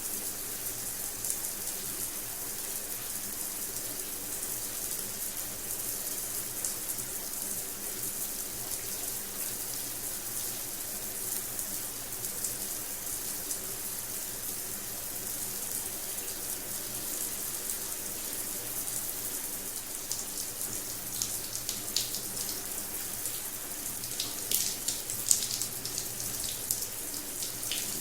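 Shower running, water spraying down in a steady hiss; from about two-thirds of the way in, sharper splashes and spatters come through more often.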